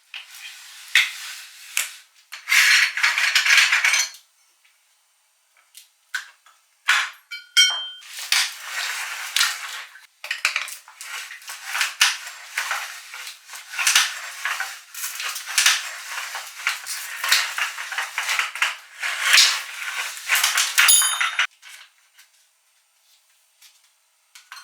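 Ping-pong balls being crushed in a meat grinder: dense crackling and crunching of the thin plastic shells, in stretches broken by a quiet gap of about two seconds and a few scattered clicks, stopping a few seconds before the end.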